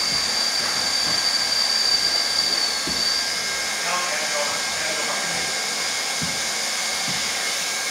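Hot-air welding gun for floor coverings blowing steadily, a hair-dryer-like hiss, with a thin high whine over the first three seconds.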